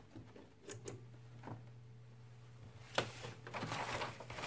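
Handling noise: a few light clicks, a sharper click about three seconds in, then rustling of a jacket sleeve moving close to the microphone, over a faint low steady hum.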